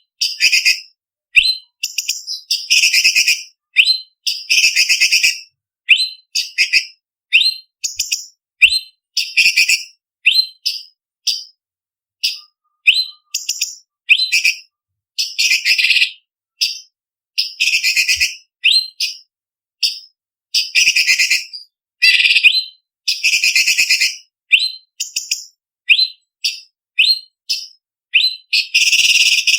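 Cucak cungkok leafbird singing: a rapid run of short, sharp, high whistled phrases and chattering trills, one after another with brief pauses, very loud and piercing.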